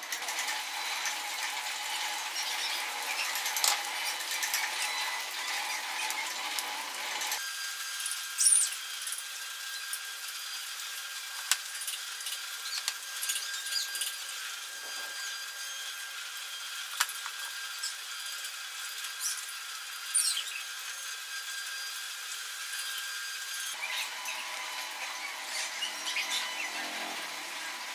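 Woodworking tool noise: a steady high-pitched hiss of tool work on wood with many scattered taps and clicks. The background changes abruptly twice, as the footage cuts between work sessions.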